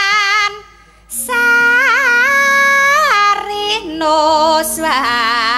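A Javanese sinden, a woman, singing in the Javanese manner with long held notes, wavering ornaments and a wide vibrato, over a quiet instrumental accompaniment. She breaks off briefly about half a second in, then comes back in.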